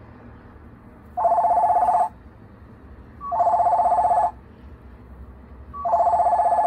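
A hill myna imitating a Panasonic telephone's incoming-call ring: three warbling trilled rings of about a second each, about two seconds apart, the last cut off near the end.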